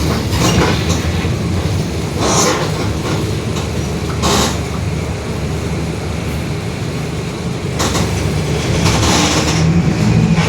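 Mercedes-Benz OF-1721 BlueTec 5 city bus under way, heard from inside: a steady low diesel and drivetrain drone with the differential growling, broken by several short clatters.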